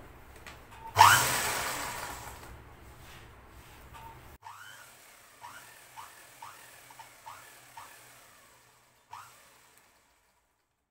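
Ghanshyam sewing machine stitching a hem: a loud burst of machine noise about a second in that dies away over about three seconds, then a run of short squeaks about twice a second, and a single click near the end.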